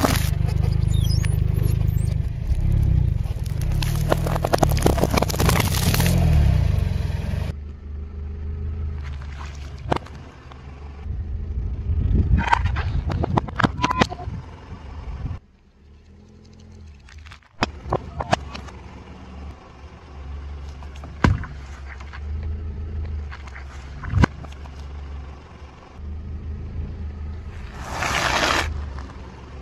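A car tyre rolls slowly over a pile of plastic-wrapped Chupa Chups lollipops in a plastic holder, giving several seconds of dense cracking and crunching over a low engine hum. Scattered sharp cracks and pops follow as the wheel crushes further objects, and a short burst of crunching comes near the end.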